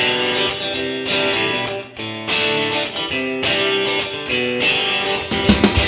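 Background music: a guitar riff repeating in short phrases, with sharper, heavier hits joining in near the end.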